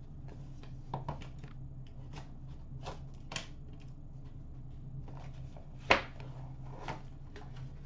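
Small cardboard card box being handled and opened by hand: scattered light taps, clicks and rustles, with one sharper click about six seconds in, over a steady low hum.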